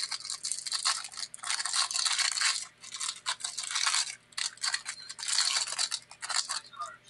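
Clear plastic cellophane wrapper around a stack of trading cards crinkling and tearing as it is pulled open by hand, an irregular crackle with a couple of brief pauses.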